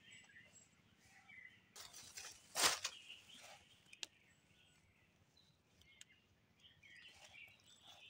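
Small birds chirping here and there in forest undergrowth, with one loud rustle, probably of dry leaves, about two and a half seconds in and a sharp click near the middle.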